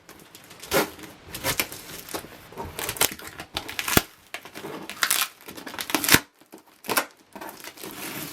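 Packaging being handled and opened by hand: irregular crinkling, rustling and tearing, with two sharp knocks about four and six seconds in.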